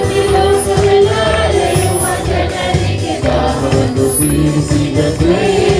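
Live Christian worship music: a Kannada praise song played by a band with a steady pulsing bass, and voices singing along.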